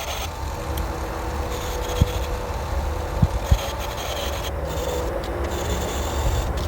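Benchtop sanding and polishing machine running with a steady motor hum while a resin ring is rubbed against its spinning sanding disc, with a few light knocks.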